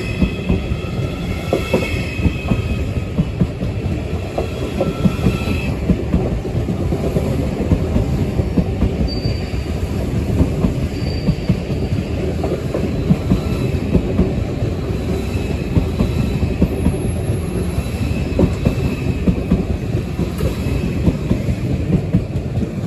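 Deutsche Bahn ICE train slowing along the platform, with brake and wheel squeal as a few high steady tones that fade out about six seconds in. A continuous low rumble with light clicks follows.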